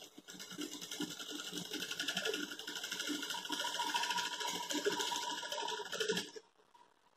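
Sewing machine running at a steady speed, stitching through layers of towel and cotton fabric, with rapid even needle strokes; it starts just after the beginning and stops abruptly about six seconds in.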